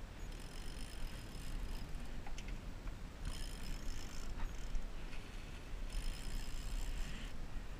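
Wind rumbling on the microphone over steady water noise from a moving fishing boat. A thin high hiss comes and goes every second or two.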